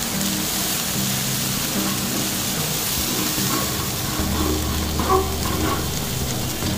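Onions, green chillies and turmeric sizzling in hot oil in an aluminium kadai as they are stirred with a spatula, over background music with low notes.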